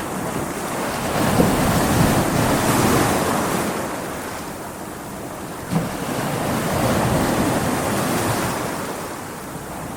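Stormy sea: waves surging and breaking under wind as a continuous rushing noise that swells and ebbs every few seconds, with a short thud nearly six seconds in.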